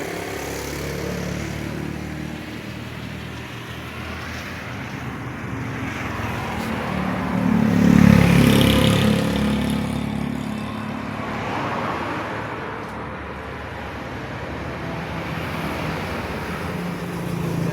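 Motor vehicle engines running steadily, with one growing louder to a peak about eight seconds in and then fading, as a vehicle passes close by or revs.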